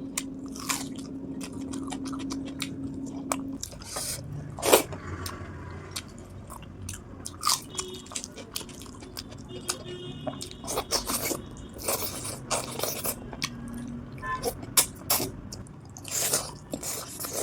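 Close-miked chewing and mouth sounds of someone eating rice with fish and cauliflower curry: irregular wet smacks and soft crunches.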